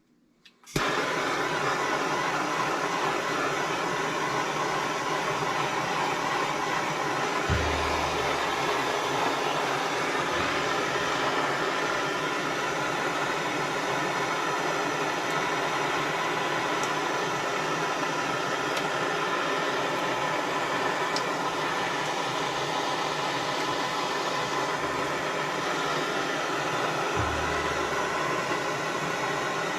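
Handheld gas soldering torch lit about a second in, then burning with a steady hiss while it heats a copper pipe joint for sweat soldering.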